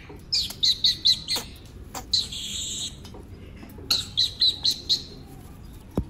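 Alexandrine parakeet calling: a run of short, sharp repeated calls, then a harsher drawn-out squawk lasting nearly a second, then a second run of short sharp calls.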